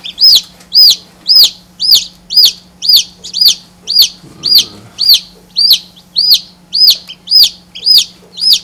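Newly hatched chicken chick peeping loudly and steadily, about two high calls a second, each rising and falling in pitch, with a faint steady low hum underneath.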